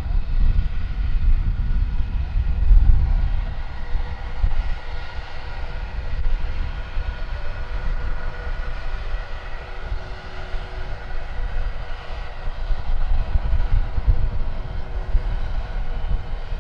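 Jet airliner's engines running: a steady whine of several held tones over a heavy low rumble that swells and dips unevenly.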